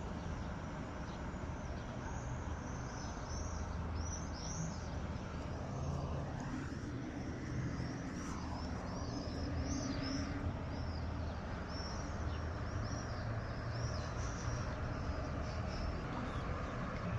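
Common swifts screaming: many short, shrill, high-pitched calls, repeated throughout. Underneath is a steady low rumble of vehicle noise.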